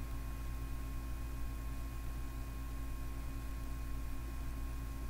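Steady low hum with faint hiss and no other sound: the background noise of the recording, with no speech.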